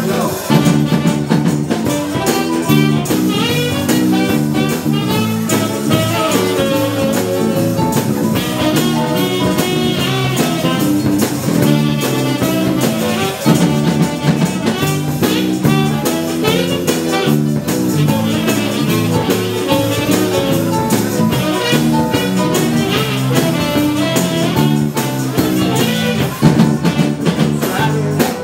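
Live dance band playing an up-tempo number with a steady beat, drum kit and guitar under a busy lead line.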